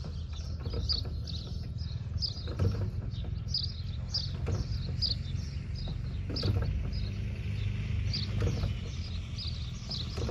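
A small songbird chirping over and over in short falling notes, over a steady low rumble. Soft knocks come about every two seconds as the aircraft's propeller is swung by hand, and the engine does not fire.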